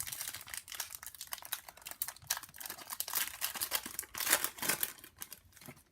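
Crinkling and rustling of Panini Prizm trading-card pack wrappers and cards being handled, a dense run of small irregular clicks and crackles.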